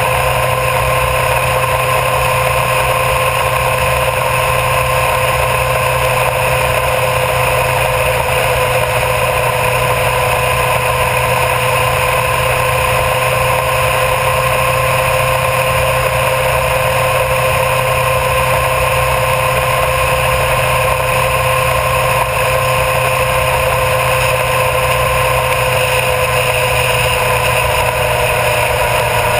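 Honda CBR1000RR Fireblade's inline-four engine running at a steady cruise, its pitch holding almost constant. Wind and road noise rush over the camera beside the front wheel.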